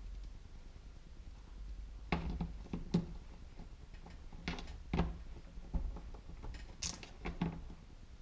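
A string of about eight short, irregular knocks and clicks on a tabletop from hands pressing plasticine (wax-based modelling clay) flat and handling a plastic star mould. The knocks begin about two seconds in.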